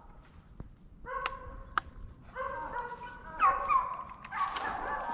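Dogs yelping and baying in short repeated cries, some dropping in pitch, with a couple of sharp clicks mixed in.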